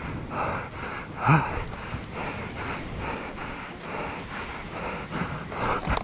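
A person's heavy, rapid panting, about two breaths a second, with a louder voiced grunt about a second in: the strain of a rider pedalling a mountain bike through soft beach sand.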